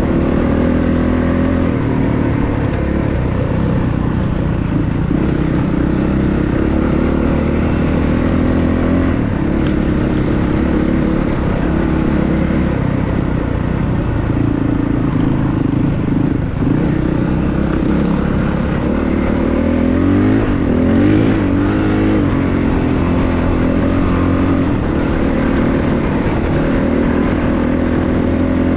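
Honda CRF450RX dirt bike's single-cylinder four-stroke engine running under way on a gravel trail. Its pitch rises and falls with the throttle and gear changes, with a quick run of revs about twenty seconds in.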